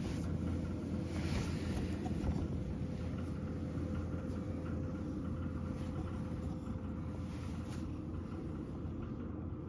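Fan heater running: a steady low hum with a faint constant tone, and a few light rustles.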